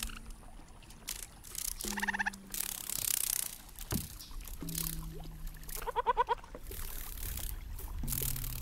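Sonic Kayak sonification playing animal-like sounds. There are several held low tones, and two quick runs of rapid bird-like chirps about two and six seconds in, over the wash of water against the kayak.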